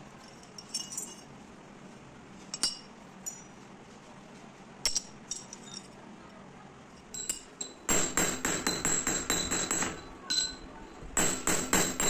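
A few scattered metallic clinks as steel parts are handled, then a hammer striking a steel rod on a steel block in fast repeated blows, about six a second, each with a high ringing note. The hammering stops briefly and starts again near the end.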